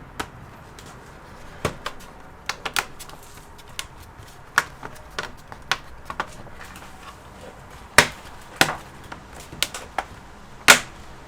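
Irregular sharp plastic clicks and taps, about fifteen in all, the loudest two near the end, as the laptop's plastic bottom cover is handled and fitted back into place.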